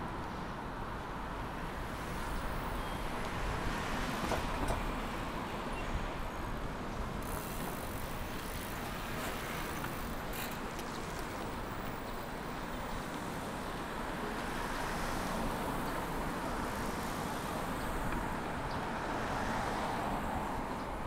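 Road traffic: a steady wash of cars and tyre noise going past, swelling as vehicles pass about four seconds in and again near the end.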